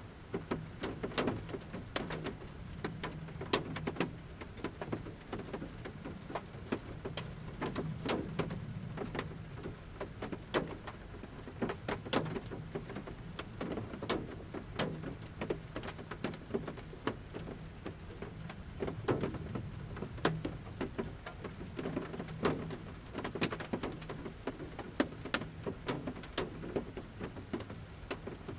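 Large raindrops from the forest canopy hitting the metal roof of a camper van at irregular intervals, heard from inside, over a steady low hum.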